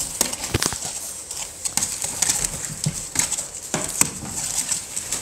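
American Bully puppies' paws and claws tapping and scrabbling on the hard plastic floor of a kiddie pool, rustling the bedding: a run of irregular clicks and taps.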